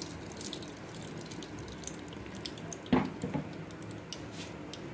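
Cooking oil poured from a spouted container into an empty kadhai, a steady trickle with small dripping ticks. A short knock about three seconds in.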